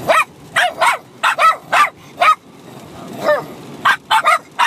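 Small dogs, a Bichon Frise among them, barking at each other in rapid high-pitched yaps: about a dozen short barks, with a pause of about a second midway.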